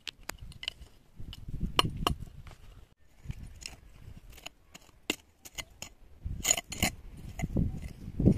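A hand tool digging and scraping stony ground to level it, with sharp clinks of metal striking stones and heavier thuds, strongest about a second in and again near the end.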